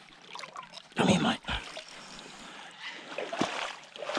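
Shallow river water sloshing and trickling around a Murray cod held in lip grips at the water's edge, with a louder rush of water noise about a second in.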